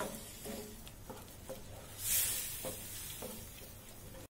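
Wooden spatula stirring and scraping through a milk sauce in a non-stick frying pan, in repeated strokes, as milk is worked little by little into a butter-and-flour roux over a low flame. A short hiss comes about halfway through.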